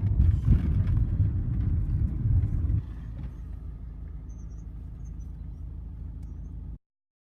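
Low engine and road rumble heard from inside a moving tour vehicle. It drops to a quieter rumble about three seconds in, then cuts off abruptly near the end.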